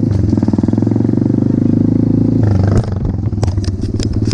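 Pit bike's single-cylinder four-stroke engine running steadily under throttle while riding, then easing off about three seconds in, with a few sharp clicks near the end.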